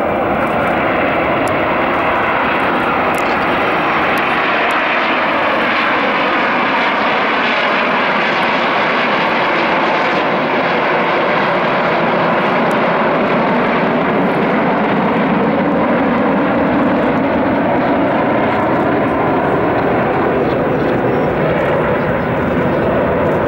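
The turbojet engines of a formation of Aermacchi MB-339 jet trainers flying overhead make a steady, loud rushing noise. Faint whines glide slowly in pitch as the aircraft pass.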